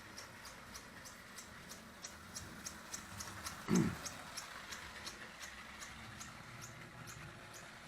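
Vintage Marx O27 toy steam locomotive running on its track, its chug-chug sound mechanism clicking evenly at about three to four beats a second over a faint motor hum. A brief, louder low thump comes a little before the midpoint.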